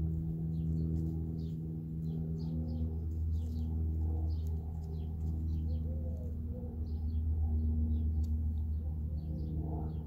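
Slow ambient music of long, held droning tones that shift note every second or two, with small birds chirping in short, high calls throughout.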